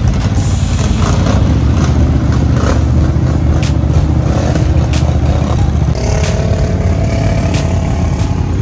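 ATV engines running as several quad bikes drive through a shallow creek, with water splashing around the wheels; music plays underneath.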